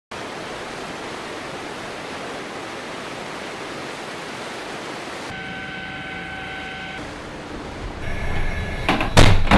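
Steady hiss like static for about five seconds, then a steady electronic tone for a second and a half, then several loud sudden bangs near the end.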